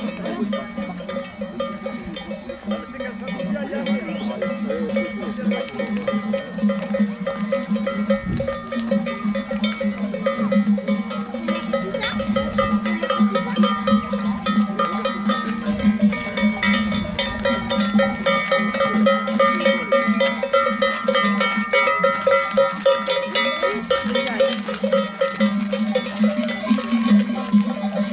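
Many livestock bells on a walking flock of sheep and goats, clanking and jangling without a break, growing louder from about ten seconds in as the flock draws near.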